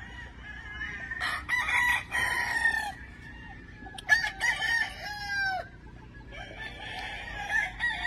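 Gamefowl roosters crowing, about three long crows one after another.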